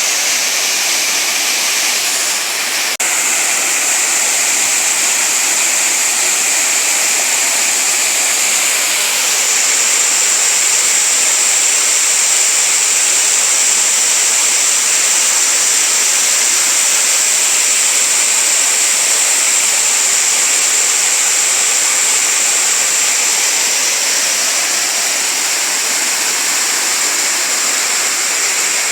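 Waterfall water falling and running over rocks: a steady, hissy rush with little low rumble, with a brief dropout about three seconds in.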